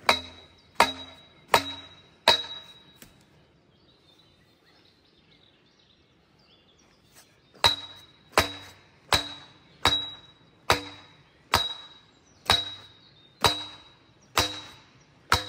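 Steel scaffold pole struck with a sledgehammer as it is driven into the sandy channel bed. Each blow rings like metal and dies away: four blows about three-quarters of a second apart, then after a pause of about five seconds a steady run of ten more.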